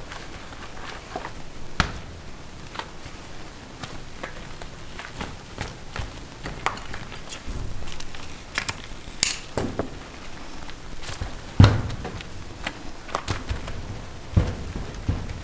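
Irregular taps, clicks and clinks from handmade hard candy being worked and handled on a work surface. There is a sharp bright click about nine seconds in and a louder knock a couple of seconds later.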